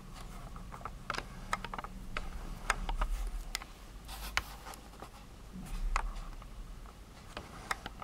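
Irregular light clicks and ticks from handling a wooden workpiece on a small homemade lathe, over a faint steady low hum.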